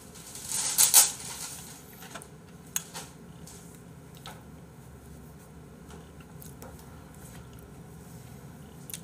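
A person eating: a loud breathy noise close to the microphone about a second in, then quiet chewing with faint scattered clicks of dishes and cutlery.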